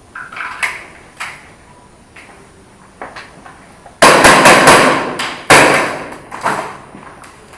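Airsoft guns firing: a few single sharp shots, then a loud rapid burst about four seconds in and another loud shot or burst at about five and a half seconds that rings out before dying away.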